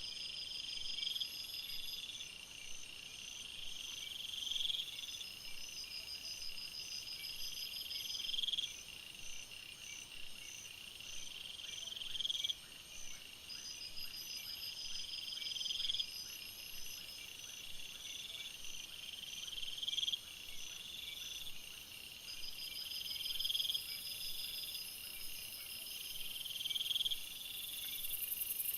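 Night-time chorus of insects. Several overlapping high-pitched trills run together: one swells and then cuts off sharply every three to four seconds, while others pulse steadily above it. A high hiss grows in near the end.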